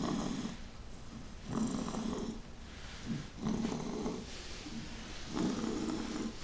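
Wheezing breaths with a rattling, rasping sound, about four in a row, coming roughly every second and a half.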